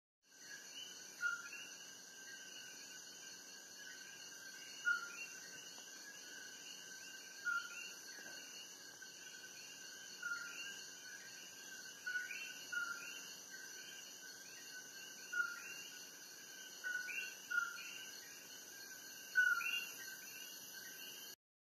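Rainforest chorus: a steady high insect trilling, with short falling chirps repeating every second or two and louder ones every few seconds. The sound cuts out abruptly just before the end.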